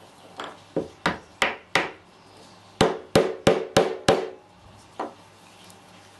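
Wooden dowel bolt with a hardwood knob knocked end-down on a wooden workbench, seating the glued knob onto the dowel: two runs of five sharp wooden knocks, about three a second, then one more.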